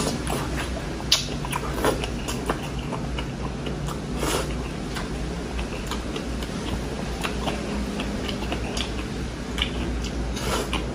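A person chewing rice and sinigang vegetables, eating by hand, with wet lip smacks and mouth clicks scattered throughout, over a steady low hum.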